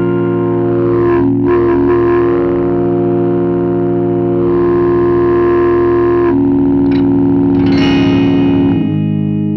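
Electric guitar chord held in a continuous drone by the Electro-Harmonix Superego+ sustainer, run through its built-in filter effect. The tone brightens and darkens several times, and the chord changes near the end.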